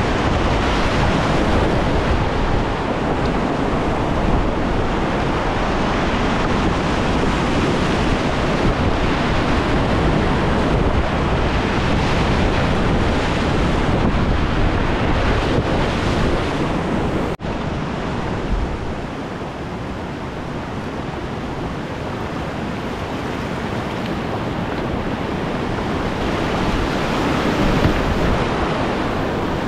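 Whitewater rapids rushing, a steady loud wash of churning river water. It cuts out for an instant about halfway through, then carries on.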